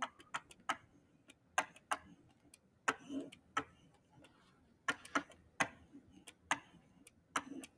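Light, sharp taps of a stylus on a writing surface as numbers are handwritten: about fifteen ticks at uneven intervals.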